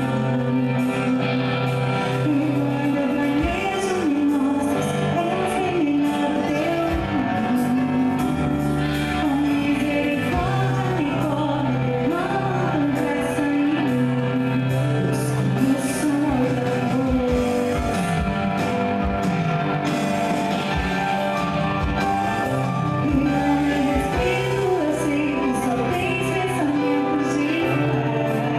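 A live worship band playing a slow song, with a woman singing lead in Portuguese over electric guitar and keyboard.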